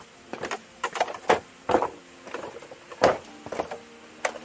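Footsteps crunching and snapping on dry leaves and twigs on a forest trail: an irregular series of sharp hits, two or three a second.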